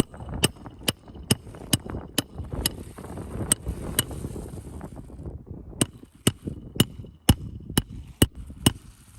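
Hammer striking roofing nails in a steady rhythm, about two strikes a second, each with a short metallic ring, with a pause of about two seconds midway.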